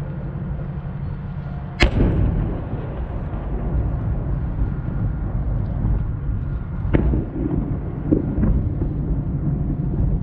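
Aerial fireworks shells bursting. One loud boom about two seconds in rolls off into a rumble, and smaller cracks follow around seven to eight and a half seconds in, all over a steady low rumble.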